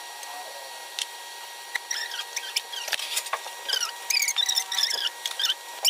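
Pakoras deep-frying in hot oil in a wok: the oil sizzles with many small pops and squeaky crackles, getting busier about two seconds in, with a few sharp clicks among them.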